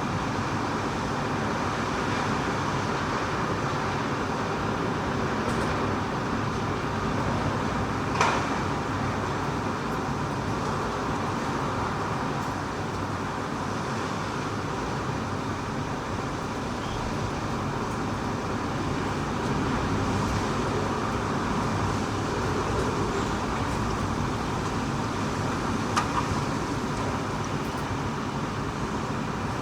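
Typhoon wind blowing hard and steadily, a continuous noise with slow swells, with two sharp knocks, one about eight seconds in and one near the end.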